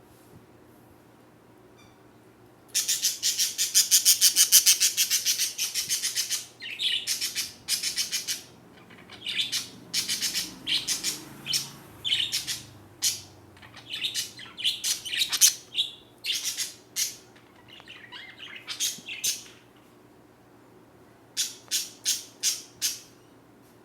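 Small songbird singing: a long, loud, rapid high trill, then a run of short chirps and trill phrases, and four quick chirps near the end.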